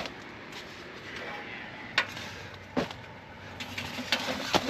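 A few sharp knocks and clunks as the Lasko space heater is handled and set down lower, near the ground. A steady faint hiss runs underneath.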